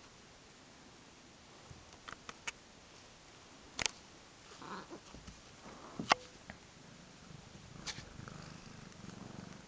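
Three-week-old Siamese kittens at play: a few sharp clicks and taps, the loudest about six seconds in, and a faint low purr in the last couple of seconds.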